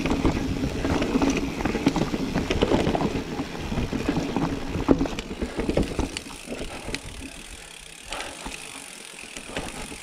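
Mountain bike ridden over rough ground: the frame and chain rattle and knock and the tyres rumble, easing off to a quieter roll about six seconds in.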